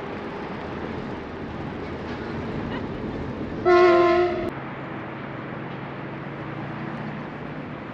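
A single horn blast of about a second, one steady tone, sounds about halfway through and cuts off abruptly. It rises over a steady background rumble.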